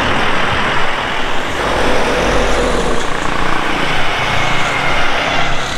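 Road traffic passing close by: vehicle engines and tyre noise on the road, with a heavier vehicle going past about two seconds in.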